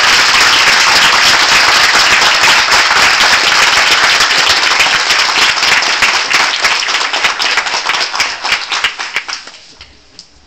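Theatre audience applauding, many hands clapping densely and loudly close to the microphone, thinning out and dying away about nine seconds in.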